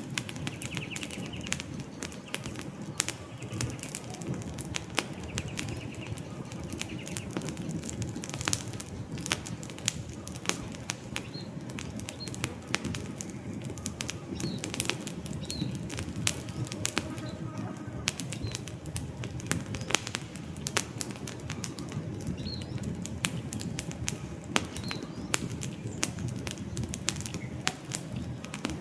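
Wood campfire crackling, with frequent sharp pops and snaps over a steady low rush of the burning logs. Faint short bird chirps sound now and then in the background.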